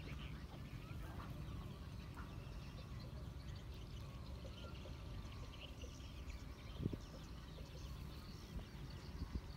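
Faint outdoor background of scattered bird calls over a low, steady rumble, with a short knock about seven seconds in.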